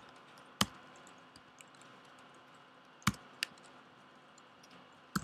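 A few isolated keystrokes on a computer keyboard: one about half a second in, then two close together about three seconds in, over faint steady hiss.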